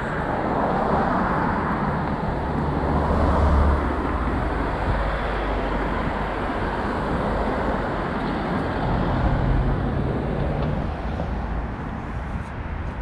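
City street traffic: motor vehicles passing close by, a steady rumble of engines and tyres that swells loudest about three and a half seconds in.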